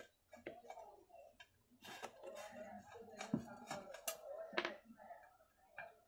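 A screwdriver working the screws out of a Cinni table fan's metal base plate: irregular sharp metallic clicks and short scrapes of tool on metal.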